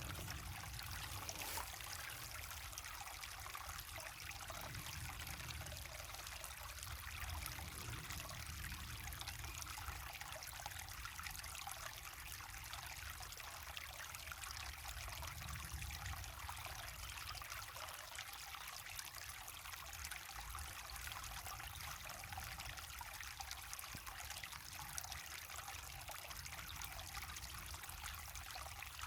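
Waterfall pouring into a river: a steady, unbroken rush of running water with a low rumble beneath.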